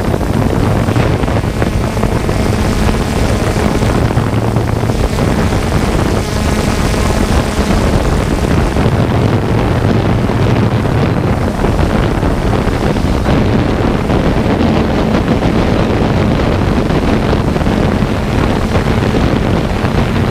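Loud, steady wind noise buffeting the microphone, with a faint low hum underneath.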